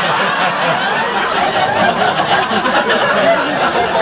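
Audience laughing at a comedian's punchline: a dense, steady wash of many people laughing together.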